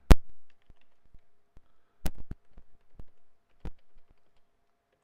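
Computer keyboard keystrokes, sparse and uneven: a sharp click just after the start, a quick pair about two seconds in, and single strokes about three and three and a half seconds in.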